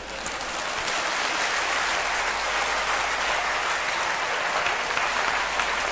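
Audience applauding, the clapping swelling over the first second or so and then holding steady.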